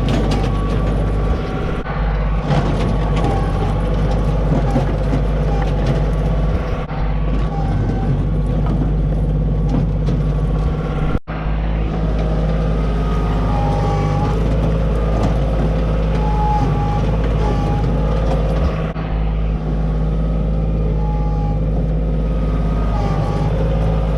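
Loader's engine running steadily while it scoops up firewood to load.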